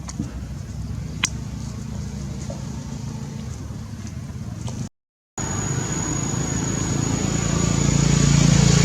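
A motor vehicle engine running with a steady low hum, with a single sharp click about a second in. The sound cuts out briefly about five seconds in, then returns louder and keeps rising, joined by a thin high whine.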